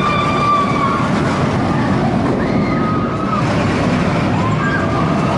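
Suspended looping roller coaster train running along its steel track, a steady loud rumble, with riders screaming in long held cries three times: at the start, midway and near the end.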